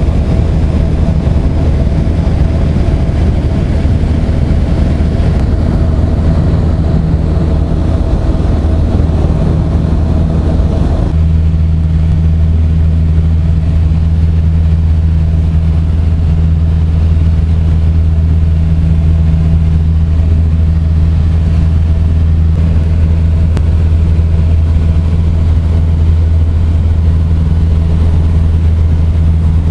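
Light aircraft's engine and propeller droning steadily in cruise, heard inside the cabin with a rushing noise over a deep hum. About eleven seconds in the sound changes abruptly: the higher rush falls away and the low drone comes to the fore.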